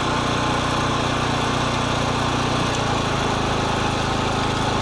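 Generator engine running steadily at constant speed, supplying power to a plastic-pipe butt-fusion welding station.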